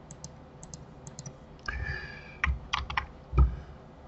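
Computer keyboard and mouse clicks: a few light clicks in the first second or so, then a handful of louder key taps, two of them with a dull thump.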